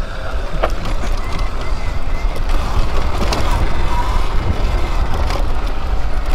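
Electric dirt bike riding down a dirt trail: heavy wind rumble on the helmet-mounted microphone over tyre noise on loose dirt, with a couple of sharp knocks from bumps.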